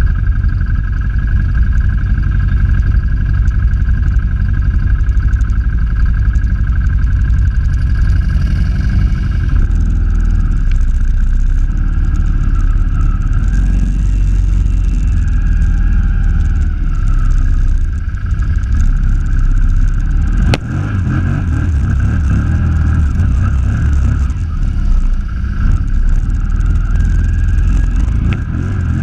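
ATV engine running steadily under load as the quad drives through deep floodwater. A single sharp knock about two-thirds of the way through.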